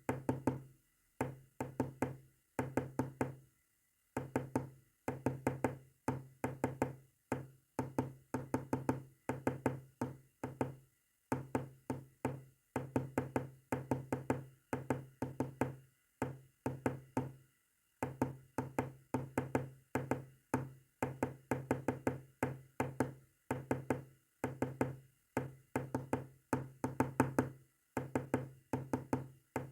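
Morse code sent as a low, buzzy tone keyed on and off in quick short and long elements, grouped into characters, with pauses of a second or two between some groups.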